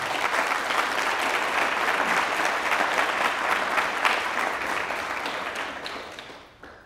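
Audience applauding: dense clapping that starts at once and fades away over the last two seconds.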